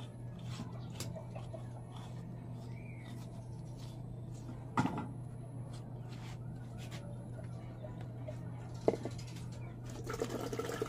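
A metal scraper scraping the soft flesh out of a young coconut shell, with faint scraping ticks over a steady low hum. Two sharp knocks come about five and nine seconds in, and near the end coconut water splashes as it is poured into a plastic pitcher.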